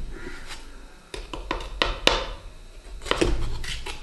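Hand and plastic scoop rummaging in a plastic tub of protein powder: a string of irregular scrapes and clicks with dull handling bumps, as the scoop is dug out and loaded with powder.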